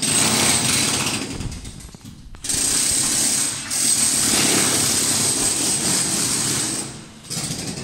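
Electric demolition hammer chiselling up porcelain floor tiles, running in several bursts with short breaks and stopping near the end.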